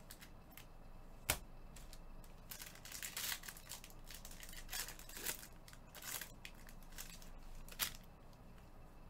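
Foil trading-card pack wrapper being torn and crinkled by gloved hands, in several crackly spells, with two sharp clicks, one about a second in and one near the end.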